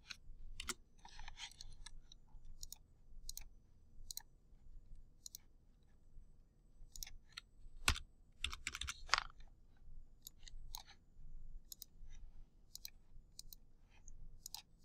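Faint, irregular clicks of a computer mouse and keyboard as a spreadsheet is worked, with a sharper click about eight seconds in followed by a quick run of clicks.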